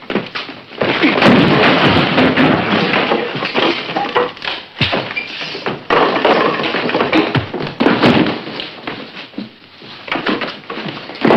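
Movie fistfight sound effects on an early-1950s film soundtrack: repeated punch smacks and heavy thuds, with crashes of bodies against furniture amid dense scuffling.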